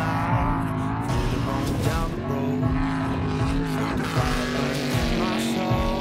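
Class 1 desert race buggy engine running hard through a dirt corner, its note rising and falling with the throttle.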